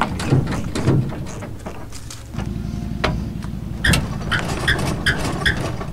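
A 1995 Chevrolet K3500's 6.5L turbo diesel truck being driven on freshly fitted shocks, the engine running steadily and getting louder a little over two seconds in. A few sharp knocks and short high squeaks sound over the engine.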